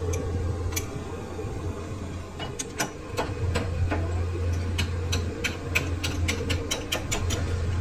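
Lathe running with a steady low hum, and from about a third of the way in an irregular run of sharp clicks, two or three a second.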